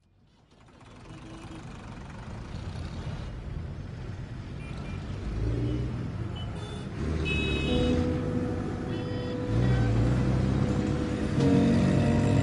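A soundtrack fades in from silence and grows steadily louder. It is low rumbling swells with sustained tones layered on top, and a few short high beeping tones about seven to eight seconds in.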